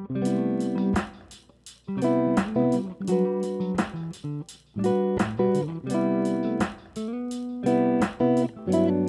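Background music: guitar chords strummed in a steady rhythm, with short gaps between phrases.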